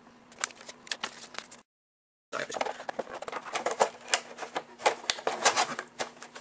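Handling noise: a run of light clicks and taps as the toy wand and its case are moved about on a table, over a faint steady hum. The sound drops out to dead silence for a moment about a second and a half in.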